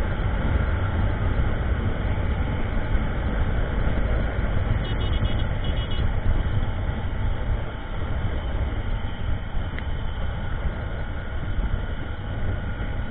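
Motorcycle on the move: a steady rush of wind on the microphone over the engine's running noise.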